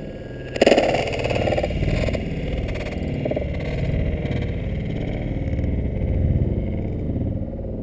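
Radio-controlled model airplane's motor and propeller heard from a camera riding on the aircraft in flight, a steady drone mixed with wind rush over the microphone, jumping louder about half a second in.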